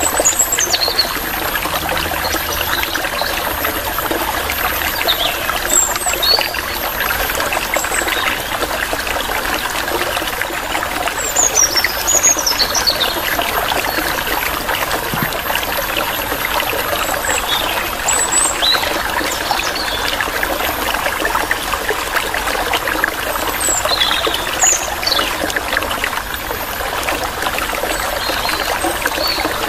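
Running water trickling steadily, like a small stream. Short high bird chirps slide downward every few seconds over it.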